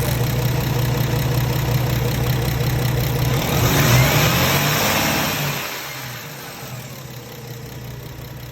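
Paccar diesel truck engine running steadily at idle, with the exhaust leak the video is about. A hissing rush swells a few seconds in and fades, and then the engine sound drops away to a quieter hum.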